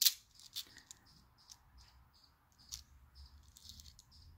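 Small metal bead caps and a plastic sorting tray being handled: a sharp click right at the start, then a few lighter clicks. Under them a faint, short, high-pitched chirp repeats about three times a second.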